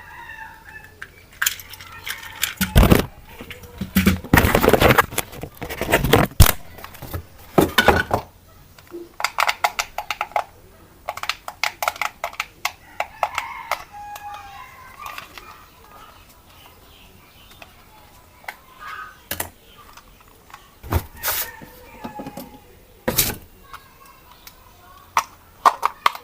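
Unboxing handling noise: a string of sharp clicks, knocks and rustles as the toy RC rock crawler and its packaging are handled, busiest in the first eight seconds and with a few more knocks near the end.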